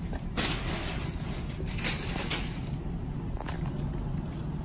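Inflated plastic air-pillow packing rustling and crinkling as kittens play in it, in a run of crackly bursts over the first couple of seconds and a few fainter ones later, over a steady low hum.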